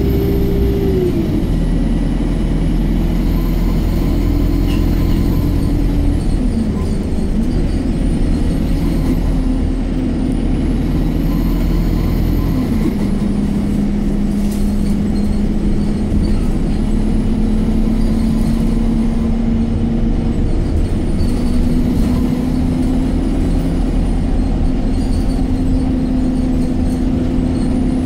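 Alexander Dennis Enviro 200 MMC single-deck bus heard from inside the saloon while under way: a steady engine and drivetrain drone with road noise. A whine over it drops in pitch about a second in, steps down again about halfway through, then slowly climbs as the bus changes speed.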